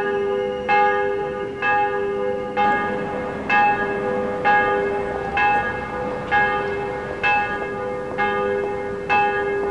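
Church bells ringing: a bell struck about once a second, each stroke ringing on over the steady hum of the bells.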